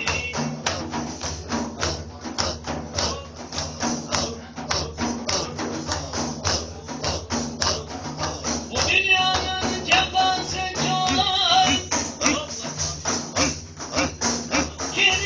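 Live music: a jingling hand drum, tambourine-like, beaten in a fast, steady rhythm. A wavering melodic line comes in about nine seconds in and again near the end.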